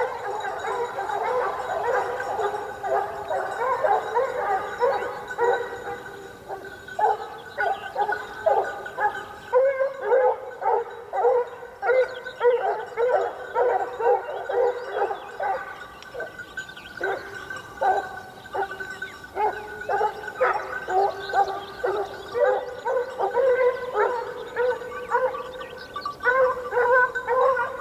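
A pack of dogs barking and yelping without pause, many voices overlapping in a constant chorus.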